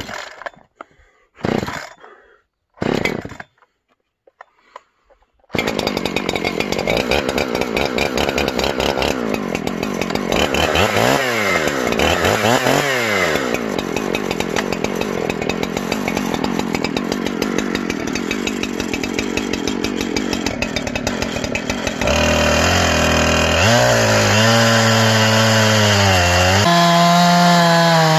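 Chainsaw in an Alaskan mill starting up about five seconds in, revving up and down twice, then running under load as it rips lengthwise through a log, its pitch wavering up and down as the cut slows and picks up. The cut is slow, which the operator puts down to a chain that may not be sharp enough.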